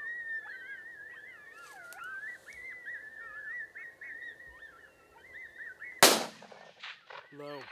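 A high warbling call wavers on for about six seconds, then a single rifle shot cracks out with a rolling echo. The shot misses the coyote, striking low and right at its feet.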